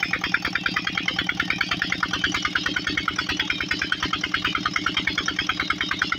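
Millat diesel engine running steadily to drive a tube-well pump, with an even, fast beat of about ten pulses a second. Water gushes from the outlet pipe and splashes into a concrete channel.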